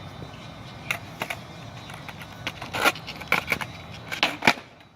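Skateboard with only hand-tightened truck bolts rolling on pavement, wheels rumbling steadily, with a string of sharp clacks and knocks from the board, the loudest near the end. The rolling dies away just before the end.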